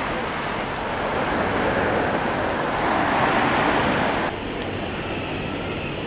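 Surf washing onto a sandy beach, with wind on the microphone, as a steady rushing noise that cuts off abruptly about four seconds in to a quieter outdoor background.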